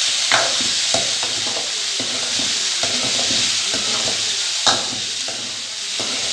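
Cubed vegetables (potato, brinjal, capsicum, raw banana) sautéing in hot oil in a kadai: a steady sizzle, with a metal ladle scraping and knocking against the pan as they are stirred. One sharper knock comes about three-quarters of the way through.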